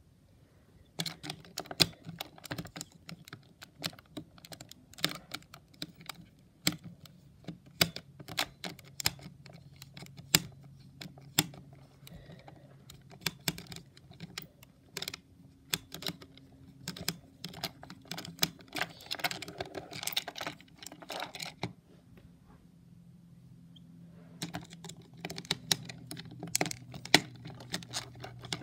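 Small screwdriver clicking and scraping against the screws and clear plastic shell of a Hexbug BattleBots Witch Doctor toy, in quick irregular taps. The tapping stops for about two seconds late on, then starts again.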